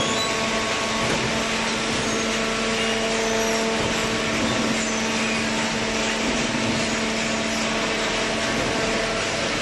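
Hydraulic cardboard baler's power unit running: a steady machine hum with a constant whine over a noisy rush.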